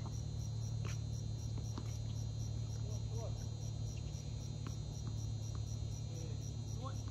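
Crickets chirping in an even rhythm, about three chirps a second, over a steady low hum. There are a few faint short taps and faint distant voices.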